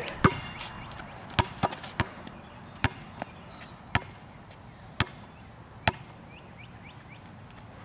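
Basketball being dribbled on asphalt: sharp slaps of the bounces about once a second, about eight in all, stopping about six seconds in.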